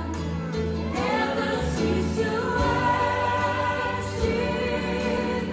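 Christian worship music: several voices singing over a band with a steady bass line.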